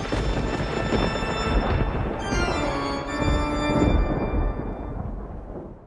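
Horror-style organ music: sustained organ chords over a heavy low rumble, fading out near the end.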